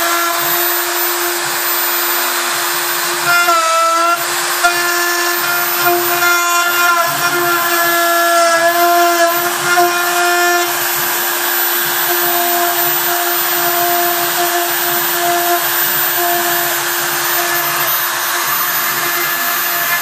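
Home-built CNC router at work, its spindle running steadily as the bit cuts into a wooden board. Over it the machine's drive motors whine, shifting pitch in short steps as the axes move, busiest from about three to ten seconds in.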